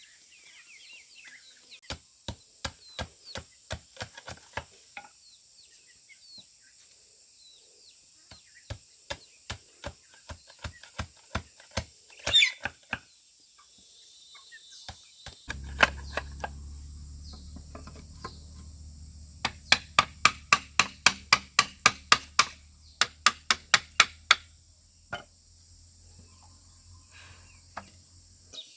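Repeated sharp tool strikes in runs of evenly spaced blows, about two a second at first and faster, about three a second, later on. A steady low hum comes in about halfway and stops just before the end.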